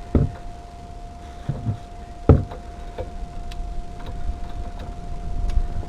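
Hand tools knocking and clunking against the metal of a van's rear brake assembly as a torque wrench is fitted onto a bolt: several sharp knocks, the loudest about two and a half seconds in, over a faint steady whine.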